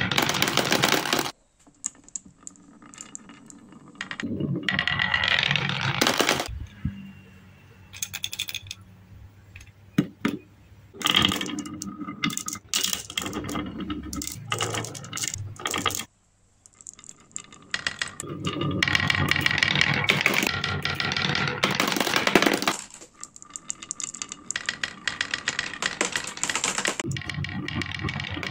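Glass marbles rolling and clattering down wooden marble-run tracks, with dense clicking as they knock against each other and the wood. The sound comes in loud bursts with short pauses.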